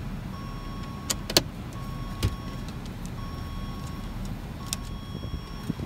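A few sharp clicks and taps of a screwdriver working screws out of a car's dashboard trim, over a steady low hum, with a faint tone sounding on and off about once a second.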